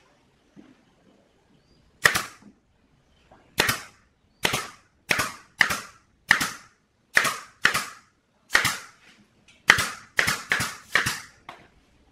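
Pneumatic nail gun firing nails into an MDF panel joint: about thirteen sharp shots at uneven spacing, quicker near the end.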